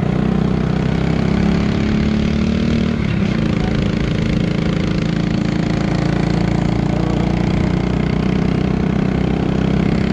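Small motorcycle engine running steadily, heard from the rider's seat, its pitch dipping slightly about three seconds in.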